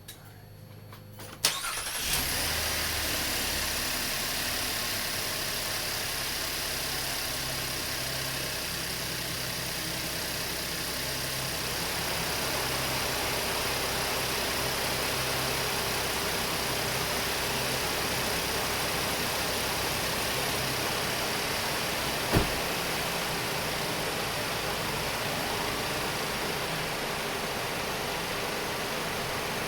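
A Chevrolet Impala's 3.6 LFX V6 is cranked and starts about a second and a half in, then idles steadily. This is its first run after a radiator hose replacement and coolant drain and fill. There is a single sharp knock about 22 seconds in.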